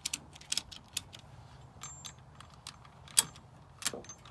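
A 1-inch ratchet strap being cranked tight to take up slack: a quick run of metal ratchet clicks in the first second, then a few single sharp clicks near the end.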